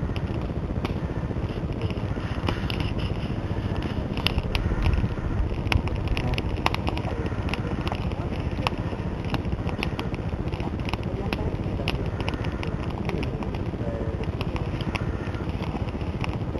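Small wood campfire crackling, with irregular sharp pops several times a second over a steady rushing background, busiest in the first half.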